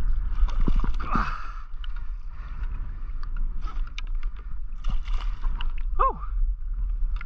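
Water splashing and knocks on a plastic kayak hull as a freshly caught yellowfin tuna is hauled aboard, over steady wind rumble on the microphone. Two short falling squeaks, about a second in and again near six seconds.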